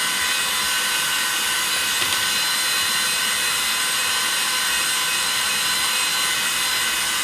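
Cleanmybricks handheld USB-rechargeable mini vacuum cleaner running steadily: a high motor whine made of several steady tones over a hiss of rushing air.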